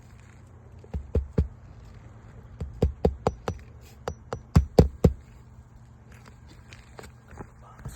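Hammer driving 1¼-inch roofing nails through an asphalt shingle: three groups of sharp strikes, several blows to each nail.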